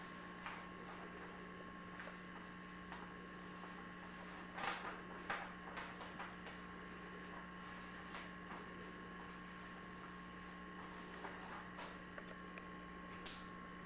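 Faint steady electrical hum, with a few soft scratching sounds about five seconds in.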